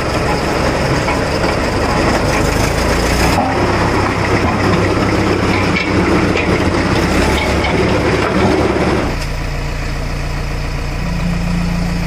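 Jessop road roller's engine running, loud and unsteady, with an abrupt change about three seconds in. About nine seconds in it gives way to a steadier engine idle with a low even hum, from a JCB backhoe loader.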